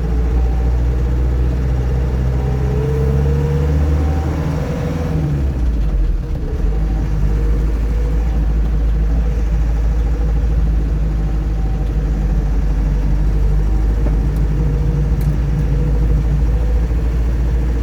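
Land Rover Series 3 engine running on the road during a drive. Its note climbs for a few seconds, dips about six seconds in, then holds steady.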